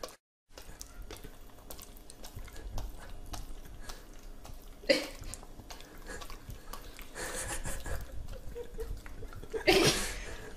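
A dog smacking and licking its lips on sticky peanut butter: a steady run of small wet clicks and smacks from its mouth. There is a short louder noise about halfway and another near the end.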